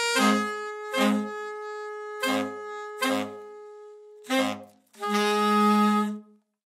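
Saxophone quintet of two altos and three tenors playing the closing bars: a high note held over five short, punchy low stabs, then a final sustained chord that stops about a second before the end, leaving silence.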